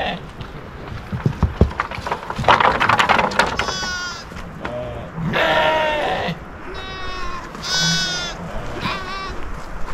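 Sheep bleating, about five quavering calls one after another in the second half, with some sharp knocks and clatter just before.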